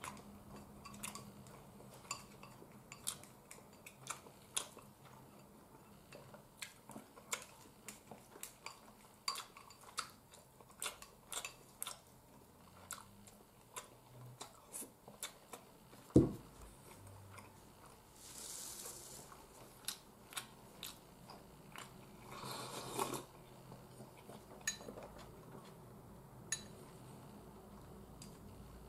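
Wooden chopsticks clicking against a ceramic bowl while a person eats and chews, with one much louder knock about sixteen seconds in, like a bowl set down on the table. Two short hissing noises follow a few seconds later.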